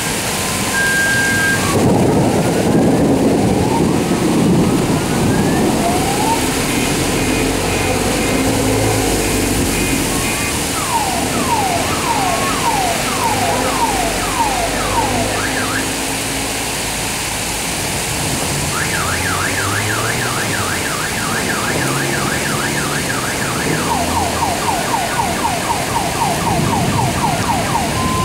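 Heavy rain pouring with a steady hiss while a car alarm cycles through its tone patterns: quick chirps, a run of falling sweeps, a fast up-and-down warble, then sweeps again near the end. A low rumble swells about two seconds in.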